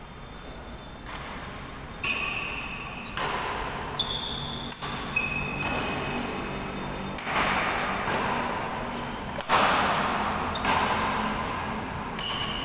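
Badminton rally: rackets striking the shuttlecock about a dozen times, roughly once a second, each hit echoing in the hall, with short squeaks of shoes on the court floor between hits.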